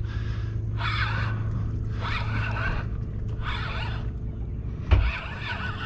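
Fishing reel being cranked in short spells, about one a second, as a hooked fish is reeled toward the boat, over a steady low hum. A dull thump about five seconds in.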